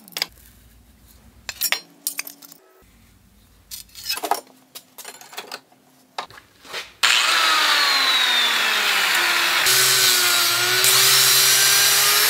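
Scattered clicks and knocks of metal flat stock being handled and set in a bench vise, then about seven seconds in an angle grinder starts cutting through the quarter-inch flat stock, loud and steady, its whine falling in pitch and then holding as the disc bites.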